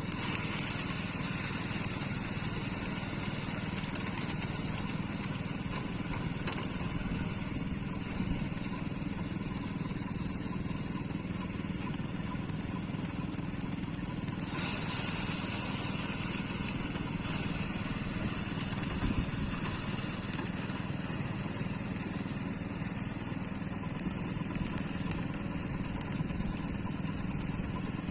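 Engine of a rice harvesting machine running steadily, with a constant low drone and a high steady whine.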